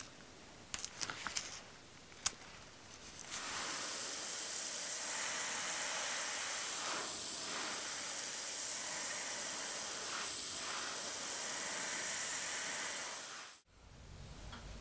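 A few crackles as masking film is peeled off a painted metal spoon lure, then a steady loud spray hiss for about ten seconds that cuts off suddenly.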